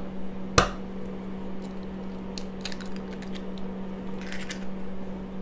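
An egg is cracked against the rim of a cup: one sharp crack about half a second in, then faint small clicks as the shell is pulled apart. A steady low hum runs underneath.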